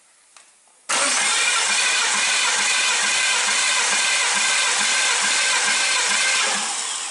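Starter motor cranking a BMW M54B30 3.0-litre inline-six for a compression test on cylinder three: a steady whine with a regular pulse, starting about a second in and winding down near the end. The test reads 13 kg/cm² on this cylinder, in line with the others.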